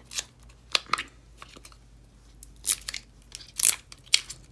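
Fingernails picking at and peeling the wrapping off a new roll of washi tape: about six short, sharp crinkling and tearing sounds at irregular intervals.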